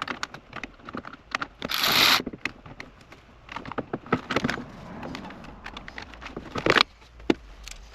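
Clicks, taps and scraping from hands and tools working the plastic dashboard trim and radio loose in a 1985 Chevy Caprice. There is a longer hissing scrape about two seconds in and a cluster of sharp clicks near the end.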